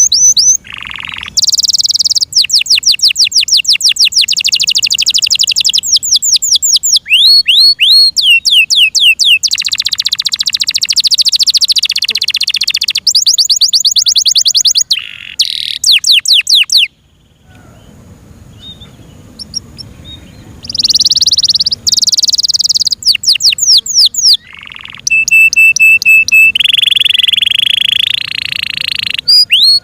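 F1 Yorkshire-cross canary singing loudly in fast trills of repeated high notes and long rolling phrases, breaking off for a few seconds about halfway through before starting again.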